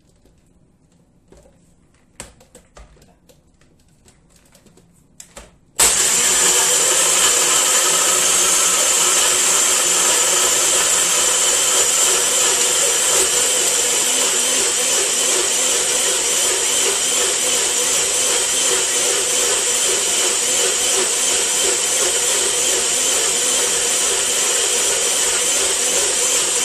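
A few small clicks as the jar is seated on a personal blender. About six seconds in, its motor starts abruptly and runs at a steady whine, blending lemon, mint leaves, sugar, ice and water into lemonade.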